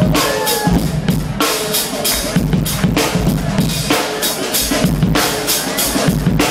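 Live drum kit solo: bass drum, snare and cymbals struck in a fast, dense run of hits, loud and close.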